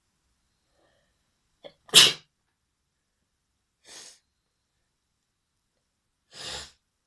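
A person sneezing: one loud, sharp sneeze about two seconds in, followed by two shorter, quieter breathy bursts.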